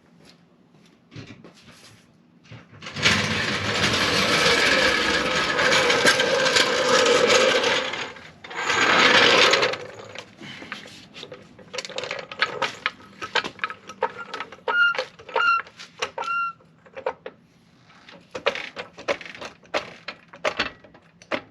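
A floor jack is rolled across the floor on its wheels for about five seconds, then again briefly. After that come many sharp clicks and metal knocks as the jack is handled, with three short metallic rings near the middle.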